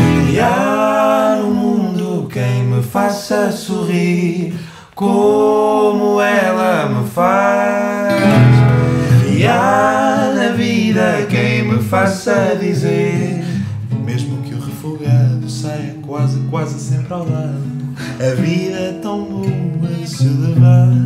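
Two acoustic guitars played together with a man singing a wordless melody over them, the long sung notes rising and falling. About 13 seconds in the voice drops out and the guitars go on alone, picking out notes and chords.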